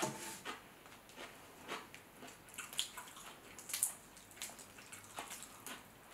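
Boiled shell-on shrimp peeled by hand: a string of small wet crackles and squishes as the sauce-coated shell is pulled off the meat.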